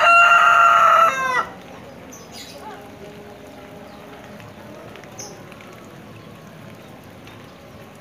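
A rooster crowing: one long, loud held call that drops in pitch as it ends about a second and a half in. Afterwards a faint steady hiss of light rain remains.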